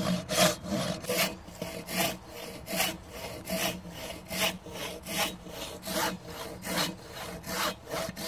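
Hand saw cutting across a log in steady back-and-forth strokes, about two to three a second.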